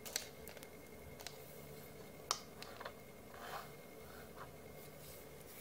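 A few faint clicks and soft rustling from handling thin wire leads and plugging the red and black test leads of a bench power supply into its output terminals, with the sharpest click about two seconds in.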